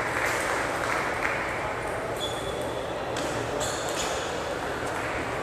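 Table tennis ball struck by rubber-faced paddles and bouncing on the table in a serve and rally: a few sharp clicks, several in quick succession about three to four seconds in, over steady hall background noise.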